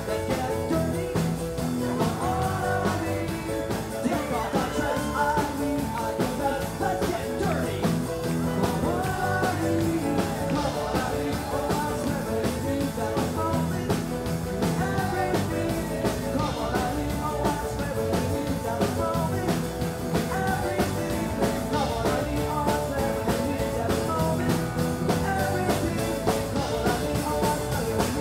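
A live rock band plays at full volume: electric guitars, bass and drum kit, with a lead vocal singing over them.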